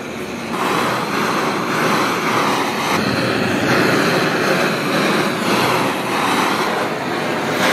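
Handheld gas blowtorch burning steadily with a loud rushing flame, its level swelling and easing a little, as it singes the skin of a pig's head.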